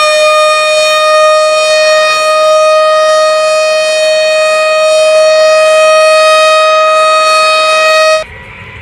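Loud alarm siren holding one steady pitch with a strong, buzzy overtone series, creeping very slightly upward. It cuts off suddenly near the end, leaving a faint hiss.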